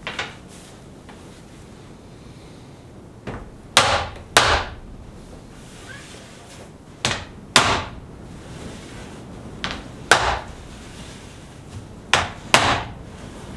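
Hard knocks on a wooden frame-and-panel door of fir and black cherry, coming in five pairs about half a second apart, each with a short ring.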